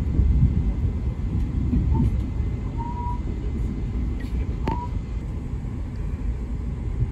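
Steady low rumble of the Acela Express rolling along the track, heard from inside the passenger car, with a couple of brief faint squeaks around the middle.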